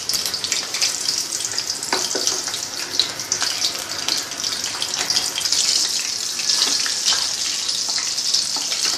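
Hot oil sizzling and crackling steadily as batter-coated prawns deep-fry.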